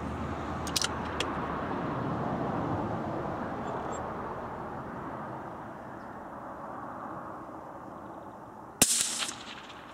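A single rifle shot from a .17 HMR CZ, a sharp crack with a short echo, near the end. Before it, the noise of passing road traffic swells and then slowly fades.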